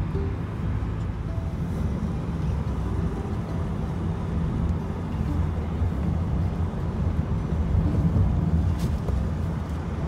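Steady low rumble of a moving vehicle: road and engine noise, with no sharp events.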